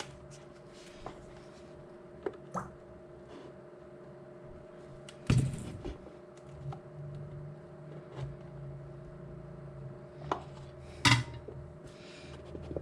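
Scattered knocks, clicks and light clatter of tools and parts being handled on a workbench, two of them louder about five and eleven seconds in, over a steady low electrical hum.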